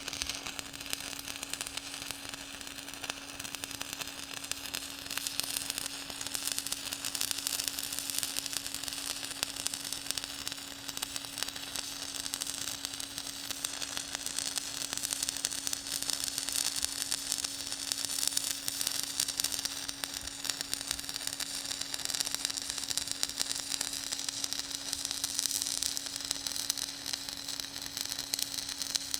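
Electric welding arc crackling and hissing steadily, with a steady low hum underneath.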